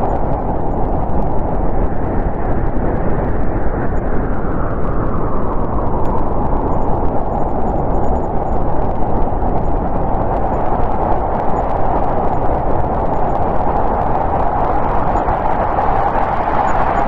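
Snowstorm wind blowing hard and steady, a low rushing howl that eases slightly in the middle and builds again near the end.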